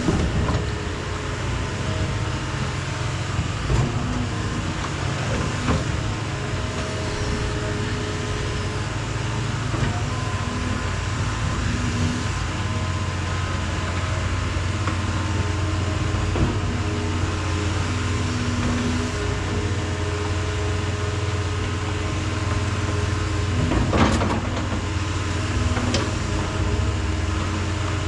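John Deere excavator's diesel engine running steadily as the machine works, with a few knocks, the loudest about 24 seconds in.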